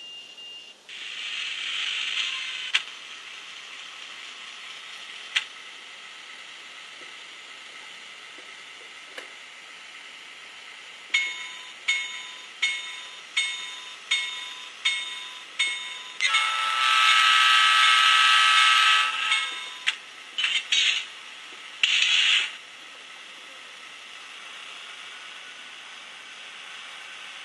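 Digitrax DCC sound decoder in an Atlas SD7 model diesel locomotive, played through its upgraded larger speaker: the diesel engine sound starts up about a second in and runs steadily. Midway the bell rings seven times, then the horn sounds one long blast of about three seconds followed by a few short blasts.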